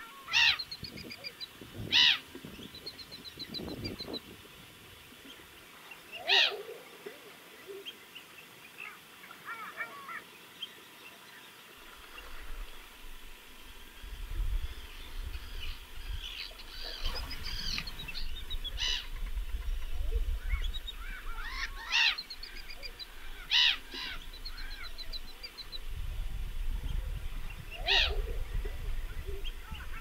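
Arctic terns calling: loud, sharp calls at intervals of a few seconds, with rapid chattering trills between them. A low rumble sets in about twelve seconds in.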